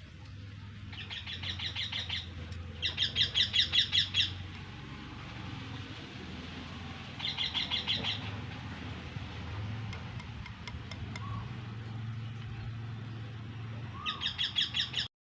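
A bird calling in rapid chattering trills: four bursts of quick, evenly repeated notes, about a second in, around three to four seconds, near eight seconds and near the end, over a low steady hum.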